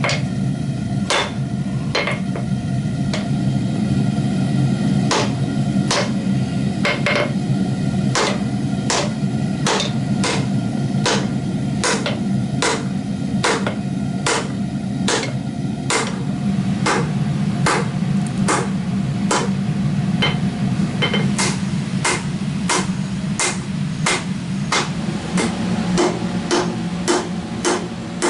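Hammer blows forging a 5160 spring-steel bowie knife blade: a long run of sharp metal strikes, irregular at first and steadier and quicker, about one and a half a second, in the second half. A steady low roar runs underneath.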